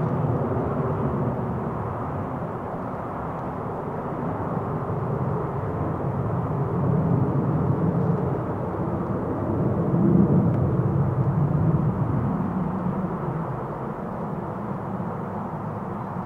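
Jet engine rumble of a Xian Y-20A Kunpeng transport's four turbofans, swelling about ten seconds in and then fading away.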